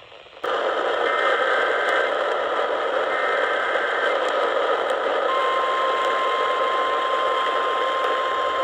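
Emergency alert received over a weather radio through heavy static hiss that cuts in suddenly: two one-second bursts of buzzy digital data tones (the SAME alert header), then about five seconds in a steady single-pitch alarm tone starts and holds, the NOAA Weather Radio warning alarm tone.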